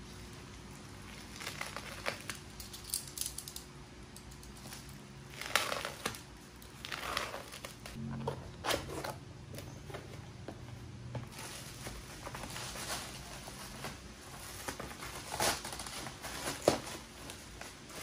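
Package being unwrapped by hand: a plastic mailer crinkling and tearing, then the flap of a cardboard box opening, with irregular rustles, scrapes and a few sharp taps.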